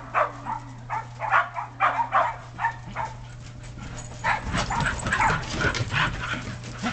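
Shetland sheepdogs (shelties) barking in a rapid string of short, sharp barks, about two or three a second, coming thicker in the second half.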